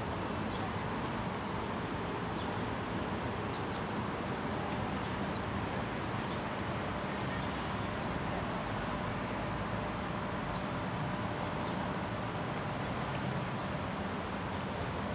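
Steady outdoor city background noise: an even hiss of distant road traffic, with no single event standing out.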